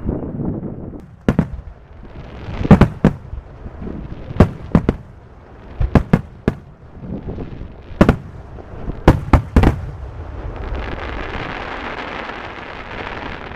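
Aerial fireworks shells bursting: about a dozen sharp bangs in irregular clusters of two or three, with a steady hiss between them that swells again near the end.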